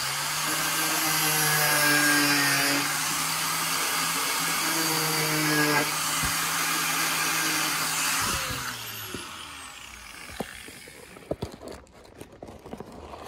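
A power tool's electric motor running steadily with a loud hiss and a steady hum, switched off about eight seconds in and winding down. After it, a few light knocks and rustles of a cardboard box being opened by hand.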